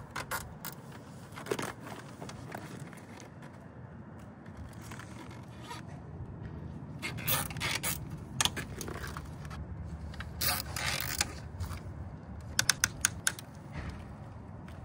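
Solar panel wires being bundled and zip-tied along a metal racking rail: intermittent scraping and rustling of cables against the rail, with longer zipper-like ratcheting as nylon cable ties are pulled tight. Near the end comes a quick run of sharp clicks.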